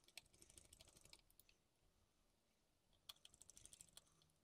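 Faint rapid clicking of a small screwdriver driving the bottom-cover screws into a Sony Vaio laptop's plastic case, in two short runs: one at the start and one about three seconds in.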